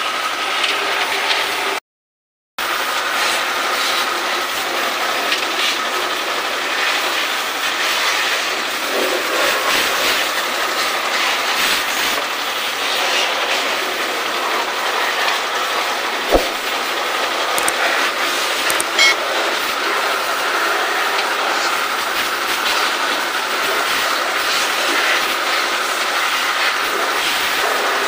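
Pressure washer running steadily, spraying water onto a window-type air conditioner's coil during cleaning, with a short dropout near the start and a single sharp knock about halfway.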